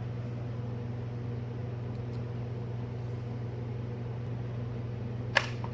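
A steady low mechanical hum in the shop during hands-on work refitting plastic windshield pillar trim, with a single sharp click near the end.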